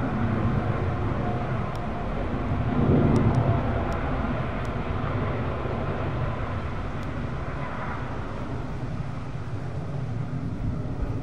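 Boeing 737 airliner's jet engines heard from a distance as it moves along the runway: a steady rumble that swells briefly about three seconds in.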